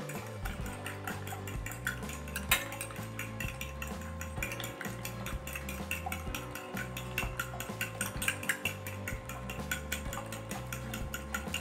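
Eggs being beaten with a metal spoon in a glass bowl: quick, repeated clinking of the spoon against the glass, about four or five strokes a second, with one sharper knock about two and a half seconds in.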